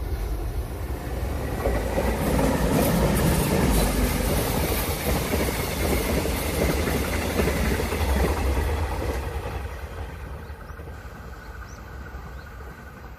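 Mugunghwa passenger train passing at speed, its wheels rumbling and clattering on the rails. The noise swells over the first couple of seconds, stays loud while the coaches go by, then fades away as the train recedes.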